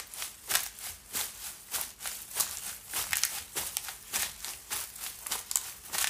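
Footsteps crunching through dry fallen leaves at a steady walking pace, a crisp rustling crunch a little more than once a second.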